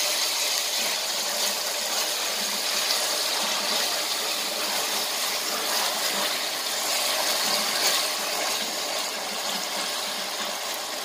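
Steady sizzling of chopped onion, garlic, green pepper and freshly added tomato frying in olive oil in a large pot while a spatula stirs them.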